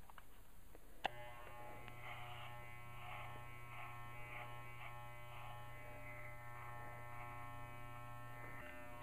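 Corded Wahl electric dog clippers switched on with a click about a second in, then buzzing steadily while shaving a dog's fur. The sound shifts a little as the blade works through the coat.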